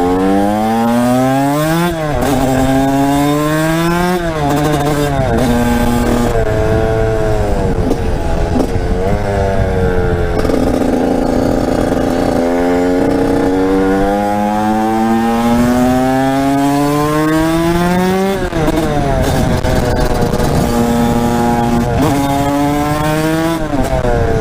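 TM 125 SMR two-stroke supermoto engine pulling hard through the gears. The pitch climbs and drops sharply at each upshift, holds steady for a couple of seconds midway, then climbs long again before falling off and picking up near the end.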